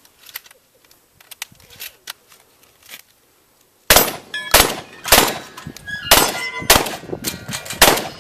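Shotgun firing a rapid string of about six shots, starting about four seconds in, with steel plate targets clanging and ringing as they are hit. Before the shooting there are only faint handling clicks.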